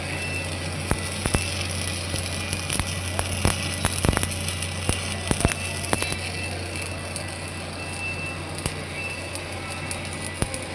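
Electric arc welding on steel pipe: irregular crackles and pops over a steady low hum, the pops most frequent in the middle.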